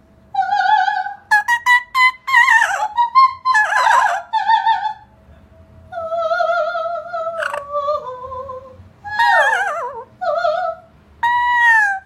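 An Amazon parrot and a woman singing an operatic vocal warm-up together in a high soprano: held notes with vibrato, quick short notes and several falling swoops.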